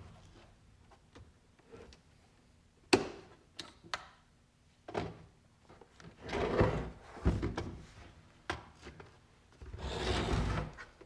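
Plastic front cover of a CyberPower UPS being worked loose and slid off the case: a sharp click about three seconds in, a few more clicks and knocks, and two longer stretches of plastic scraping against plastic.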